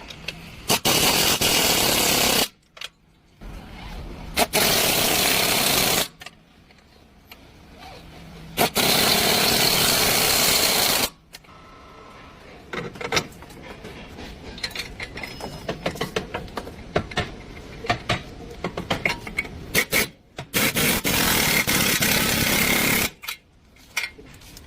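Power tool running in four bursts of about two seconds each, starting and stopping abruptly, with clicks and knocks between the bursts.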